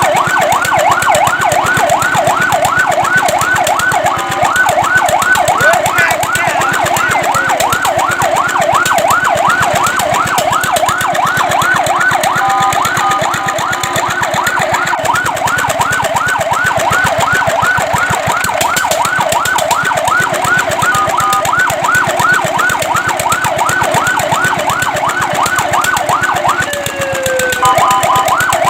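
Fire truck siren on a fast yelp, rising and falling about three to four times a second. The yelp is broken twice by short steady tones, and near the end it drops away in a falling glide before starting up again.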